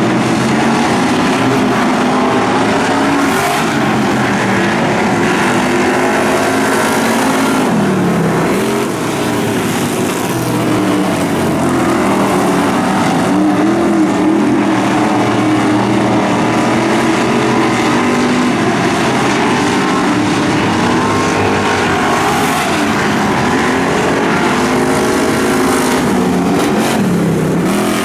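Several dirt track race cars running laps together, their engines loud and continuous. The engines rise in pitch on the straights, and their pitch drops sharply twice as the drivers lift off for the turns, about 8 seconds in and near the end.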